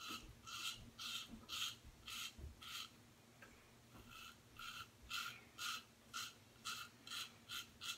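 Disposable double-edge safety razor scraping through lathered stubble in short, quiet strokes, about two a second.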